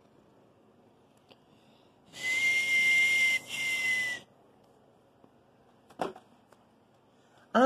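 A steady, hissy high whistle lasting about two seconds, with a brief break partway through, then a single sharp click a couple of seconds later.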